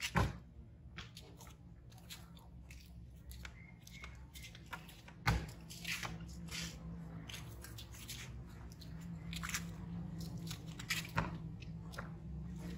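Scattered clicks, taps and rustles, with two sharp knocks, one just after the start and one about five seconds in, over a steady low hum.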